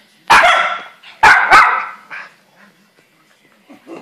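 Schnauzer barking: three loud, sharp barks in quick succession, then a softer fourth.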